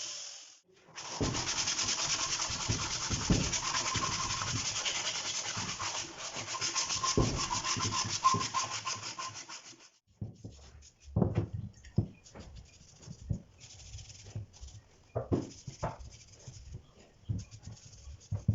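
Wood being sanded: a steady, loud rasping that starts about a second in and stops about ten seconds in, followed by quieter, intermittent rubbing strokes and a few light knocks.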